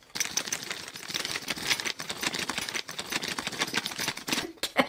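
Metal fidget ring rattling inside a small clear plastic zip bag as the bag is shaken, with the plastic crinkling: a fast, dense run of clicks that stops near the end.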